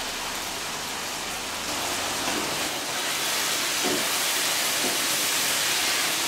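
Goat meat sizzling as it is stir-fried in oil in a frying pan and turned with a wooden spatula: a steady hiss that grows a little louder about two seconds in.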